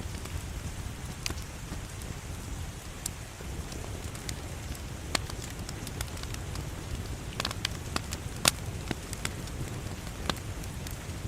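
Wood fire burning in a fireplace: a steady low rumble of flames under scattered sharp crackles and pops, with a small cluster of pops a little past seven seconds and the loudest pop about eight and a half seconds in.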